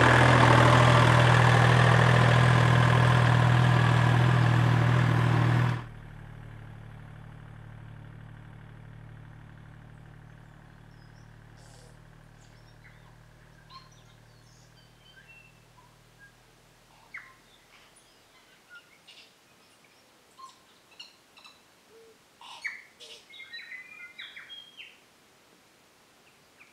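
Kubota L1-18 tractor's diesel engine running steadily, the loudest sound, until it cuts off sharply about six seconds in, leaving a faint low hum that fades away. Then scattered bird chirps and calls, busier near the end.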